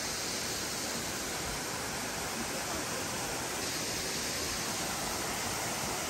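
Waterfall and the creek below it rushing steadily: an even, unbroken hiss of falling water.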